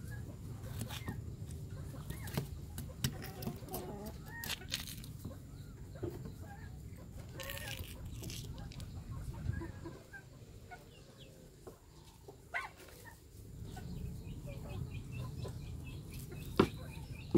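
Chickens clucking in the background, with scattered sharp clicks and scrapes of a kitchen knife against a wooden cutting board as a fish is slit open and gutted; the loudest click comes near the end.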